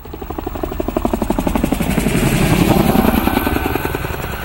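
MV-22 Osprey tiltrotor flying overhead with its proprotors tilted up, the rotors beating in a fast, even rhythm. It grows louder to a peak about three seconds in, then eases slightly.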